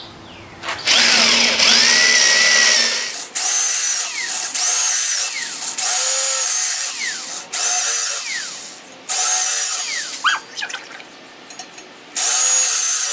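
Power drill with a step drill bit enlarging pilot holes in 16-gauge steel plate, running in about six bursts of one to three seconds each as it goes from hole to hole. The motor whines, and the bit squeals as it cuts.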